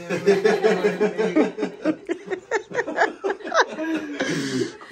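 People laughing loudly in quick, repeated bursts of voice, ending with a breathy exhale near the end.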